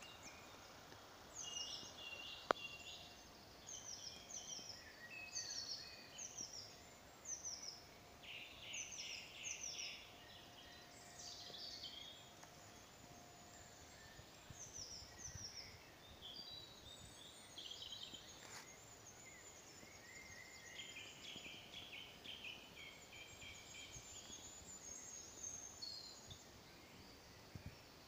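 Woodland birdsong: several small songbirds singing in short, high, repeated phrases throughout, with one sharp click about two and a half seconds in.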